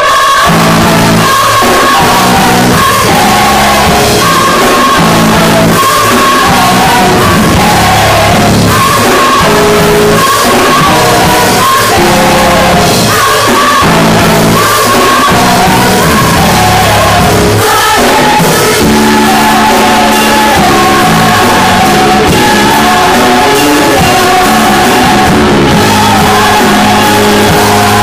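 Gospel choir singing loudly in full voice, backed by keyboard and bass guitar.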